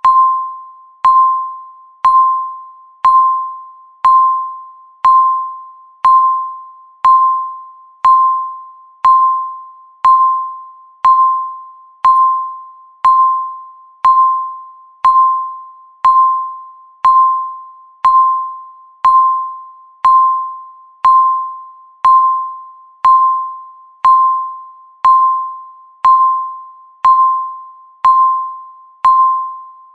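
Countdown timer beeping once a second: a single-pitched electronic beep that starts sharply and fades away before the next one, one beep for each second counted down.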